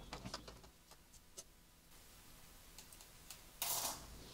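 Faint scattered clicks as the bottom cover of a Lenovo ThinkPad T14s Gen 1 laptop is pried free by hand and lifted off, with a short rustle near the end.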